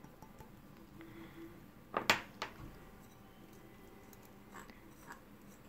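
Quiet room tone broken by a sharp click about two seconds in and a softer one just after, then a few faint ticks.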